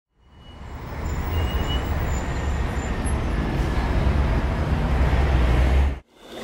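Outdoor ambience like street traffic: a steady low rumble under a hiss, with a few faint short high tones over it. It fades in over the first second and cuts off abruptly about six seconds in.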